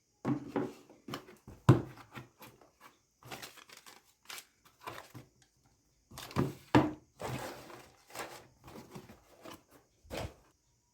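Packaging being handled and opened: irregular rustling and crinkling with sharp knocks and clicks, the loudest knocks about two seconds in and again near seven seconds.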